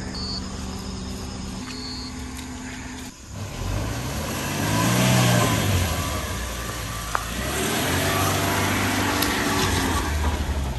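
Car engine revving up and easing off twice as the car drives through mud and passes close by, its pitch rising and falling each time. Before that, about three seconds of steady held tones end suddenly.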